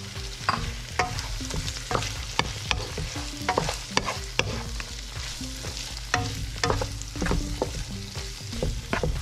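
Wooden spatula stirring and scraping in a nonstick wok, knocking against the pan a few times a second, over the steady sizzle of pork and shrimp frying.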